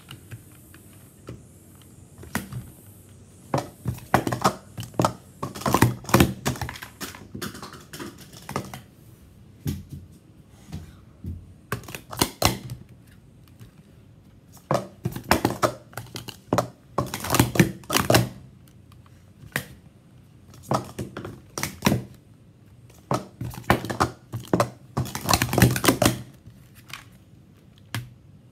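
Plastic sport-stacking cups clacking as they are stacked up and down on a mat, in bursts of rapid clicks with short pauses between them.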